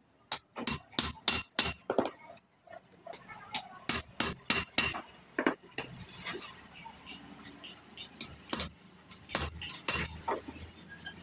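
Metal tools clinking and tapping on a semi-truck clutch disc, in sharp, irregular strikes: a quick run in the first two seconds, another around four to five seconds in, then a few scattered ones.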